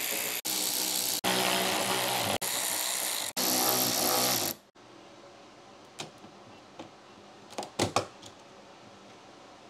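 Power drill spinning out the small bolts of a hood trim piece, in five short runs one after another. It then goes faint, with a few light clicks and knocks of handling.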